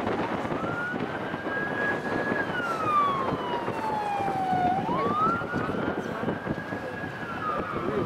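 A wailing emergency siren: the pitch climbs quickly, holds high for a moment, then slides slowly down, about every five seconds, over a steady rushing background noise.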